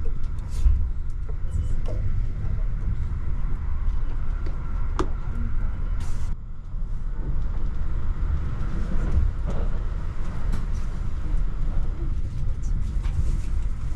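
Kintetsu Hinotori limited express train running, heard from inside the passenger cabin: a steady low rumble, with a few light clicks and knocks, one sharp one about six seconds in.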